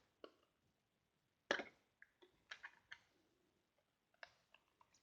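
Scattered light clicks and taps of an eyeshadow palette being handled, the loudest about one and a half seconds in.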